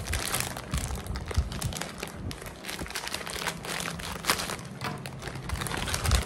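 Plastic wrapping and paper packing crinkling and rustling as they are handled, with irregular crackles and a few soft low bumps.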